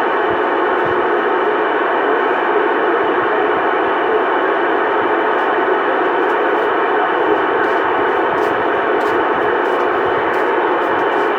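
Steady, loud hiss of static from a CB radio receiver with no voice on the channel. The sound is held within the radio's narrow voice band.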